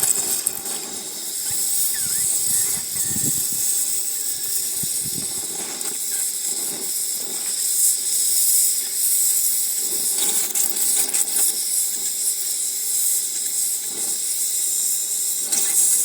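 Oxygen-propane torch flame hissing steadily as it heats a rusted bolt as red as possible to loosen the rust.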